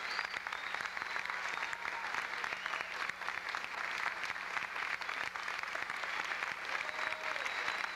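Theatre audience applauding steadily, with a few voices calling out faintly over the clapping.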